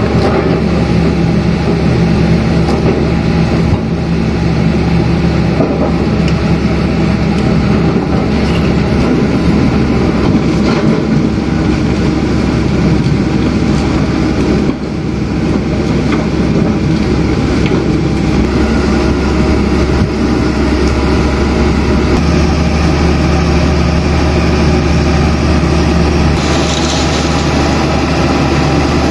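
Engine of a mini rotary drilling rig running steadily under a constant drone, with a brief hiss rising over it near the end.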